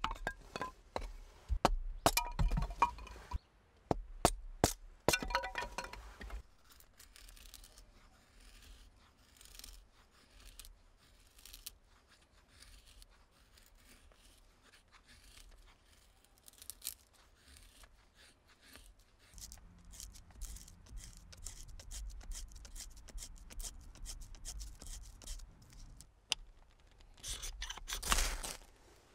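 Knife work on wood: sharp knocks and cracks as a stick is split, then a long run of soft scraping strokes as the blade shaves thin curls from it. Near the end comes a short, loud rasping scrape of a ferro rod striker throwing sparks onto the birch tinder.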